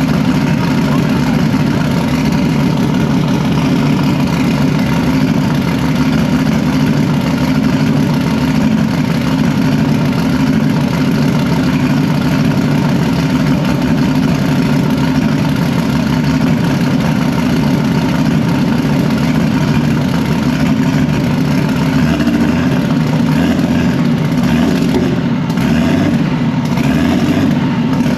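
Engine running steadily at an even speed, a loud constant drone that shifts a little near the end.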